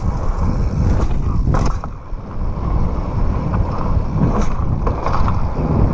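Downhill mountain bike rolling over rough concrete: a steady low rumble of tyres and rattling bike parts, with a couple of sharp knocks from the bike about one and a half seconds in and again past the four-second mark.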